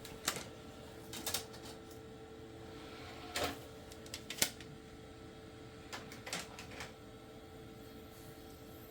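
Irregular sharp clicks from a 1997 Packard Bell Multimedia R501 desktop computer being operated while a game loads from CD, over a faint steady hum.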